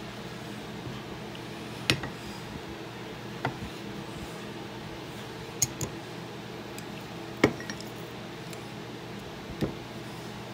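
Half a dozen sharp metallic clinks and knocks at irregular intervals, the loudest a little past the middle, as a steel double-bit axe head is handled against a cast-iron bench vise. A steady low hum runs underneath.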